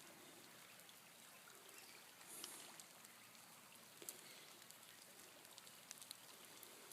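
Faint, steady trickle of a winter creek running after heavy overnight rain, with a few faint clicks.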